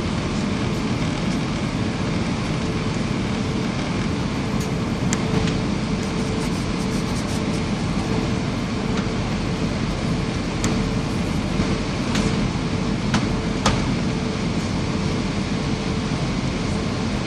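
Airliner cabin noise inside an Airbus A320: a steady rush of engine and airflow noise with a faint steady hum and a few small clicks and rattles.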